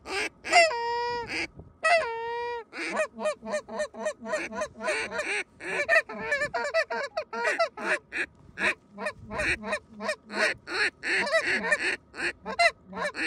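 Goose honking and clucking: two long drawn-out notes near the start, then a quick run of short honks several times a second.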